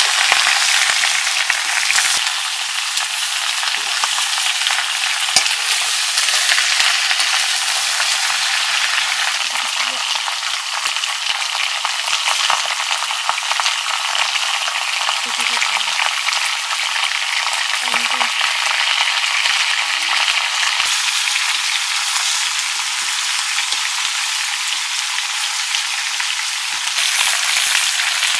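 Chopped pork frying in a wok, with a steady sizzle.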